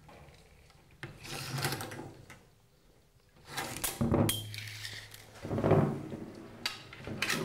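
Handling noise as a measuring tape is stretched between the tips of carbon-fibre wind-generator blades lying on a wooden table: rubbing and knocking against the tabletop in several separate bouts, with a few sharp clicks.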